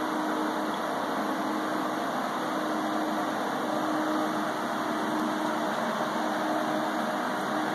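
Steady whir of a ceiling-mounted cooling unit's fan, an even, unbroken hum with a faint low tone running through it.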